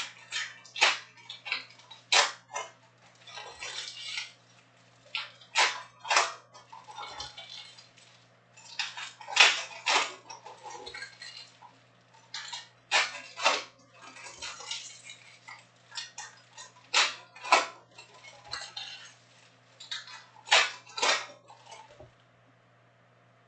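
Topps Chrome trading card packs being torn open and the cards handled by hand: repeated sharp crinkling, rustling and snapping of the wrappers and card stock in quick irregular bursts that stop near the end.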